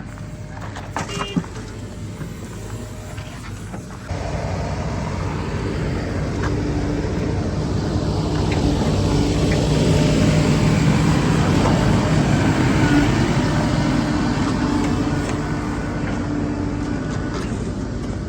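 Heavy diesel machine's engine running steadily, stepping up about four seconds in, growing louder to a peak in the middle and easing off near the end.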